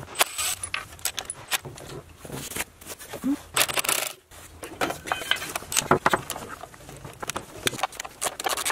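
Socket ratchet clicking in short spurts, with metal tool clinks, as intake manifold bolts and stud nuts are loosened on an engine that is not running.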